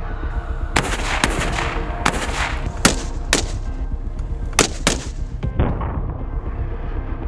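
Rifle gunshots, about eight sharp reports at uneven intervals over some five seconds, played over background music with a steady beat.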